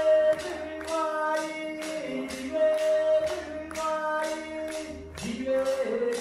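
Traditional Aboriginal song accompanying a dance: a voice singing long held notes over a steady beat of clapsticks struck about two times a second.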